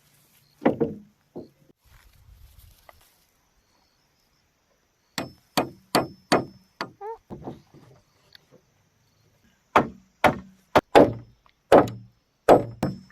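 Bamboo being chopped with a blade in sharp strokes: one stroke near the start, a quick run of about five strokes about five seconds in, then another run of around nine strokes, roughly two a second, from about ten seconds in.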